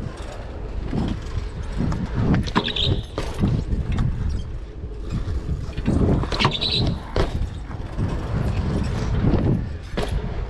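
BMX bike riding over a concrete skatepark: a steady low rumble of tyres rolling on concrete and wind on the bike-mounted microphone, with scattered knocks and clicks from the bike. Two brief high squeaks, about three seconds in and again about six and a half seconds in.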